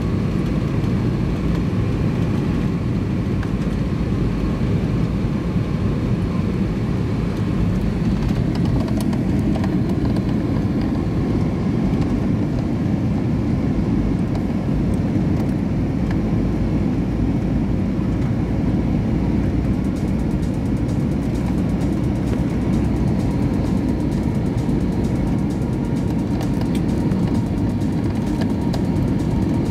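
Steady cabin noise inside an Airbus A320neo during descent: the even rumble of engines and airflow, strongest in the low range, with a faint steady tone over it.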